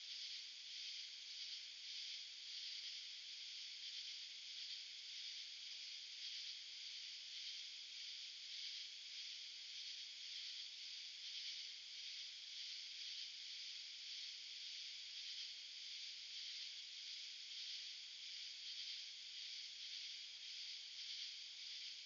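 Chorus of insects in summer: a steady, faint, high-pitched drone that pulses evenly about twice a second.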